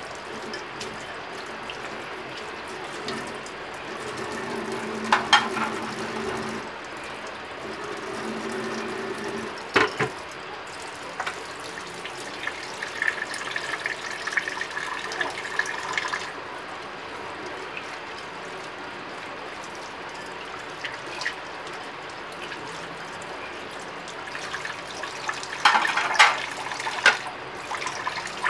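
Tap water running steadily into a stainless steel kitchen sink while plates are scrubbed and rinsed by hand. A few sharp clinks of plates knocking against each other or the sink stand out, about five, ten and twenty-six seconds in.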